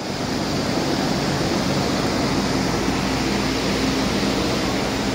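Cummins ISX15 inline-six diesel engine running steadily at a constant speed during a test run.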